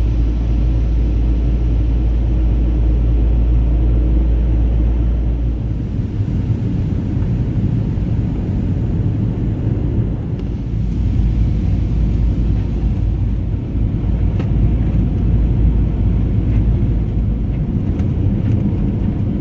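Airliner cabin noise during the landing: a loud, steady low rumble of engines and airframe. The deepest part of the rumble eases about six seconds in.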